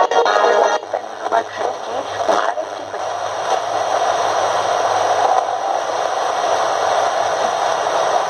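Philips DL167 portable radio on FM being tuned between stations: the music from one station cuts off about a second in, a few brief warbling snatches pass as the dial moves, then a steady static hiss of an empty frequency comes from the speaker.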